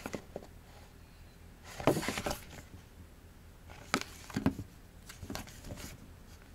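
A thin paperback picture book being handled: its paper pages and card cover rustle and flap in a few short bursts as it is closed and turned over. The loudest comes about two seconds in, with smaller ones about four and five and a half seconds in.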